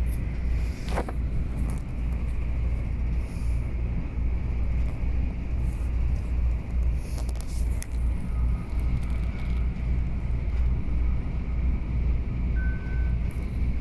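Steady low rumble of an Airport Express train running at speed, heard from inside the passenger carriage, with a faint steady whine higher up.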